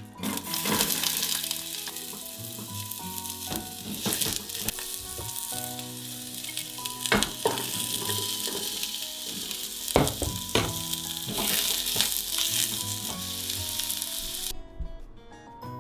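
Food frying in a pot, a steady sizzle with the occasional knock and scrape of a utensil stirring it; the sizzle cuts off abruptly near the end.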